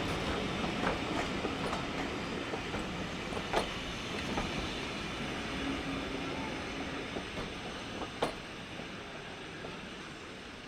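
Steam-hauled passenger train rolling along the track, its wheels clicking over rail joints, with two sharper knocks about a third and three quarters of the way through; the running noise slowly fades as the train draws away.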